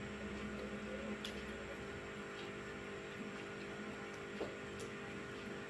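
A steady low electrical hum with a few faint, soft clicks of people chewing and eating with their fingers.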